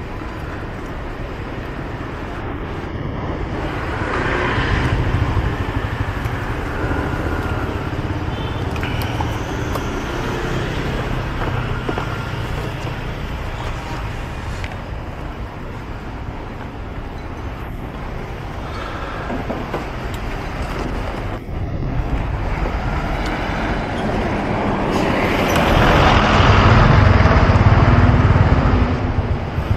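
City street traffic: a steady wash of passing motor vehicles, with a louder pass about four seconds in and the loudest swell near the end as a vehicle passes close.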